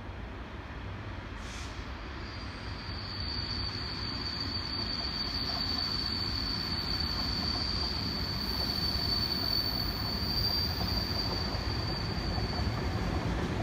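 Class 66 diesel locomotive approaching with a train of hopper wagons, its two-stroke EMD V12 engine rumbling low and growing steadily louder. A steady high-pitched whine sets in about two seconds in and fades near the end.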